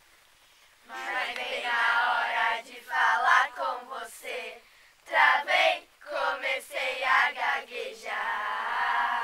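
A group of young voices singing a Portuguese pop love song together, starting about a second in after a short pause between lines.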